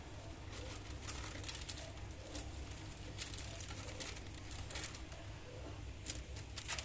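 Irregular light clicks and taps from handling things at a kitchen counter, over a low steady hum. The sound cuts off suddenly near the end.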